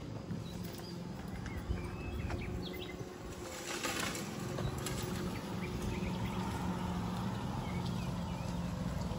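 Suburban street ambience: a steady low hum with a few short bird chirps and a brief rush of noise about four seconds in, while a car drives along the street.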